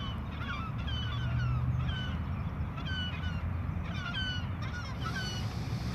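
A flock of birds calling, many short falling notes overlapping several times a second, over a steady low rumble.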